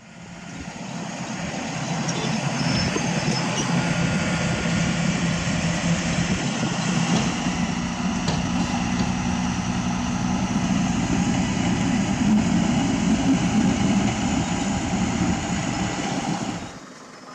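Heavy diesel truck engine running under way, a steady low drone with road and tyre noise, building over the first couple of seconds and cutting off sharply near the end.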